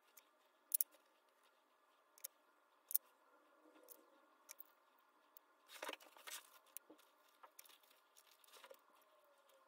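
Faint small clicks and taps of Montblanc 322 fountain pen parts being handled and fitted together over a plastic parts box. There is a brief, louder rustle about six seconds in, as a cloth is picked up.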